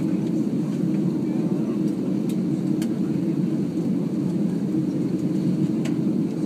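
Steady low cabin hum inside an Airbus A330-300 airliner taxiing after landing, from its engines and air systems, with a few faint clicks.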